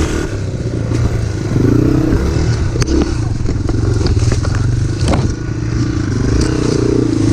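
Off-road motorcycle engine running at low revs in first gear, its pitch wavering as the throttle is worked. A few sharp clicks or knocks cut in about three and five seconds in.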